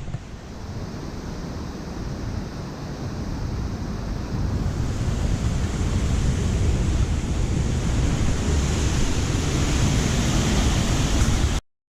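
Rushing mountain-stream water with wind buffeting the microphone, a steady rush that grows louder over the first five seconds and then cuts off abruptly near the end.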